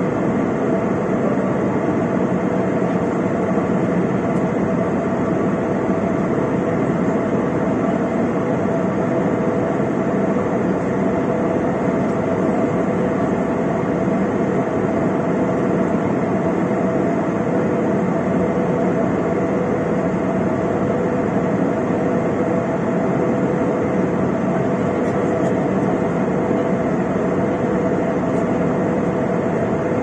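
Cabin noise of a jet airliner in cruise: the turbofan engines and the airflow over the fuselage make a steady, even rush with a few constant hum tones on top.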